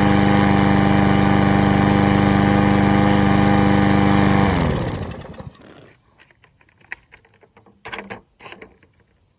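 Lawn mower's small engine running steadily on its new spark plug, then shut off about four and a half seconds in, its pitch falling as it winds down to a stop. A few faint clicks and knocks follow.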